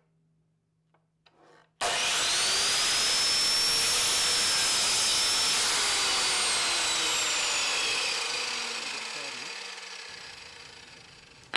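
Electric mitre saw switched on about two seconds in, running loud with a high whine as it cuts through a Tasmanian oak board, then winding down with a slowly falling whine over the last few seconds.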